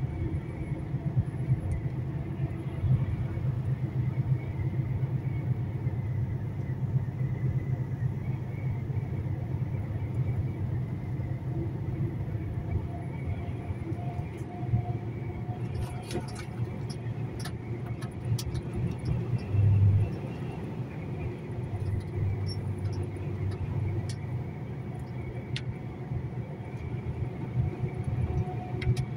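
Heavy truck on the move: a steady low engine and road drone with faint steady tones above it, and a brief louder low surge about twenty seconds in.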